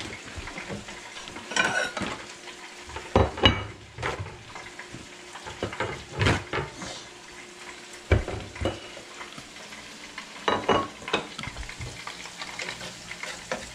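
Hot oil sizzling steadily as panko-breaded dryad's saddle mushrooms deep-fry, with kitchen utensils knocking and clattering several times against the counter and pans.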